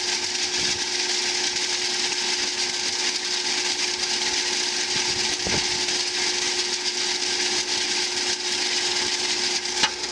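Q-Sage 10×24 debearder running steadily while its rotor knocks dishwasher detergent pods apart against the stationary teeth: an even mechanical hum with a hiss over it.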